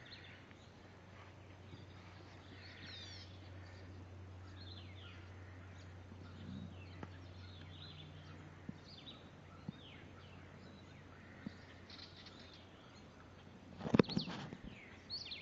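Birds chirping in the background, short downward-sweeping calls repeating every second or so, over a low steady hum. A few faint clicks, then a louder burst of knocks and rustling near the end.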